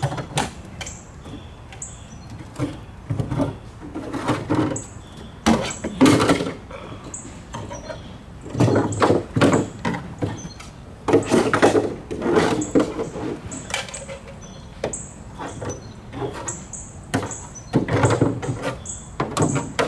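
Old fittings being worked loose by hand from the bow of an aluminum boat: irregular squeaks, knocks and scrapes of metal and plastic, in clusters, with the loudest bunched in the middle and near the end.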